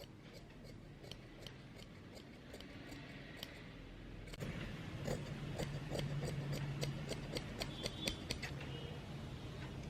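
A run of light, sharp clicks, a few a second, over a faint room background; a little over four seconds in, the background gets louder and the clicks come quicker.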